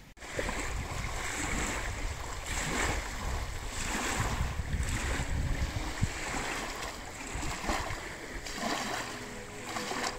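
Canoe paddle strokes splashing in the water, a swell of splashing roughly every second and a half, with wind rumbling on the microphone.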